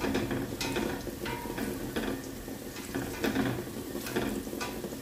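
Sliced onions frying in oil in a stainless steel pot, sizzling, while a nylon slotted spatula stirs them in repeated scraping strokes, about two to three a second. The onions are being fried until lightly browned.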